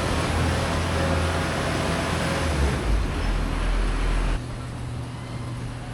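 Heavy farm machinery engine running steadily. About two-thirds of the way through, the sound cuts abruptly to a quieter, steadier engine hum.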